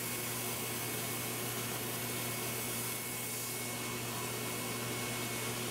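Turbine-fed paint spray gun running steadily, a constant hum under an even hiss of air as it sprays yellow rubber dip.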